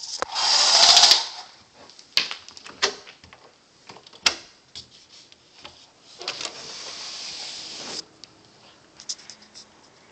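A window sliding open, with a loud harsh scraping rush lasting about a second near the start. It is followed by scattered clicks and knocks and a softer scraping rush of about two seconds later on.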